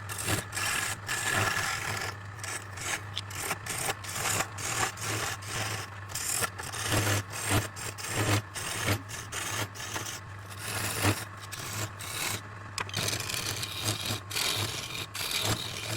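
Redwood being worked on a running lathe: repeated rasping, rubbing strokes against the wood, about twice a second, over the steady hum of the lathe motor.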